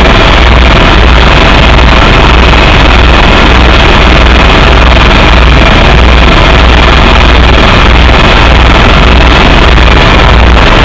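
Helicopter rotor and engine noise heard from inside the cabin: a loud, steady drone with a low throb from the rotor.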